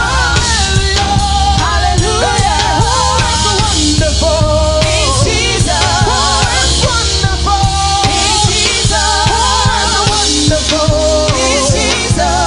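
Loud live gospel praise-break music: a singer's voice with wide vibrato, held and sliding notes, over a driving drum beat and bass.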